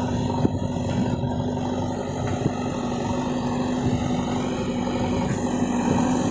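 JCB backhoe loader's diesel engine running steadily under load as its front bucket pushes a heap of soil, a continuous drone with a steady hum.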